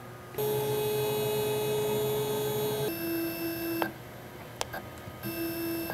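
Laguna IQ CNC router's stepper motors whining at a steady pitch as the gantry is jogged across the table, then switching to a lower steady whine about three seconds in. A couple of clicks follow, and the lower whine returns briefly near the end as the axes are jogged again.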